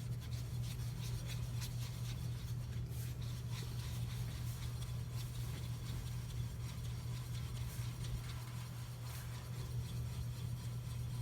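Right rear wheel bearing of a 2012 Ford Fiesta sedan turning as the lifted wheel spins, giving a rasping rub with scattered small clicks over a steady low hum. The owner takes it for a faulty rear wheel bearing.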